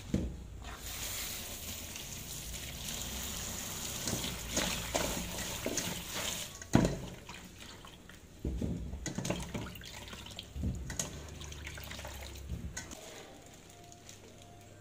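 Kitchen tap running into a stainless steel bowl at the sink, filling it over sliced fish cake, stopping after about six seconds. A single sharp knock follows just before the seventh second, then hands swish and rub the pieces in the water with irregular splashes and light knocks against the bowl.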